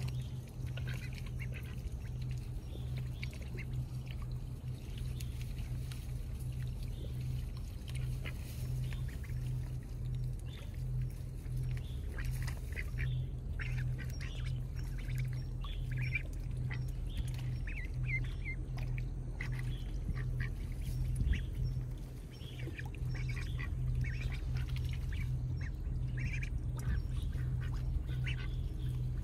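Domestic ducks quacking in short calls on and off, over a steady low rumble.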